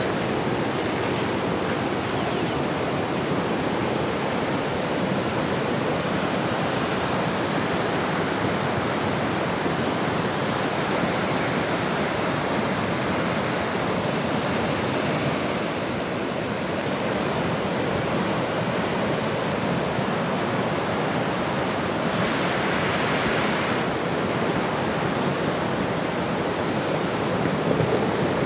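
Floodwater of a swollen, muddy river rushing past in a steady, unbroken wash of noise, with a brief rise in hiss about two-thirds of the way through.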